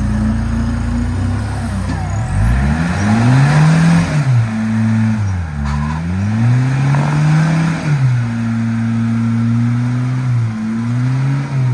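Off-road buggy's engine revving up and down several times as it crawls through deep mud ruts, then holding a steady note for a couple of seconds before a last dip and rise near the end.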